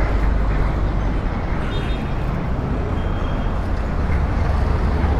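Steady low rumble of road traffic and vehicle engines.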